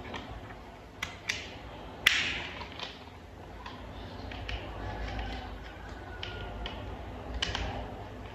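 Toy vehicle parts being handled and fitted together: scattered sharp clicks and taps, the loudest about two seconds in with a short ring after it.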